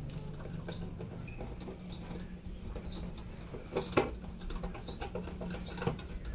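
Small irregular clicks, taps and scrapes of computer parts being handled during a PC build, with one sharper click about four seconds in, over a low steady hum.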